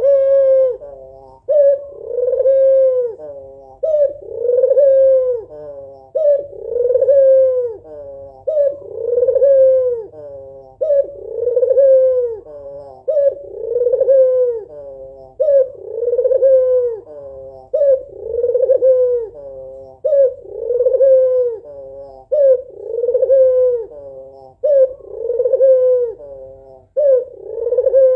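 Female white Barbary dove (puter) cooing over and over, a two-part coo about every two seconds: a short clipped note, then a longer note that rises and falls. This is the hen's call for a male.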